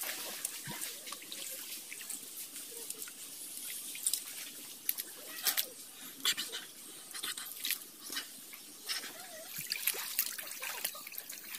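Shallow rocky stream trickling over stones, with scattered sharp splashes and clicks in the water.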